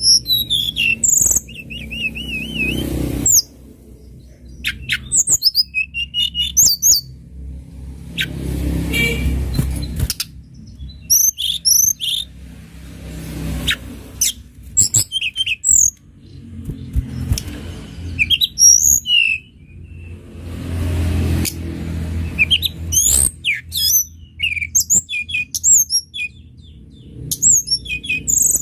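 Tledekan gunung singing: bursts of rapid high-pitched chirps and short twittering phrases with brief pauses between them, over a low background hum.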